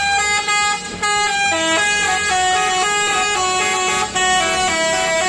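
Tour bus's multi-tone 'telolet' musical horn playing a quick melody of held notes, stepping from pitch to pitch, with the engine humming low underneath.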